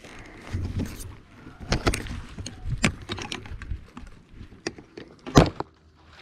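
Camera handling noise: rustling and an irregular series of clicks and knocks as the camera is moved about by hand, with one sharp, loud knock about five seconds in.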